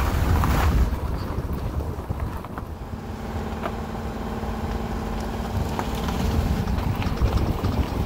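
Front-wheel-drive car rolling slowly on gravel, engine running, tyres crunching and wind on the microphone, with a few scattered sharp clicks from the outer CV axle joint. This popping when turning under acceleration is the stereotypical sign of a worn outer CV joint, its balls and races degraded.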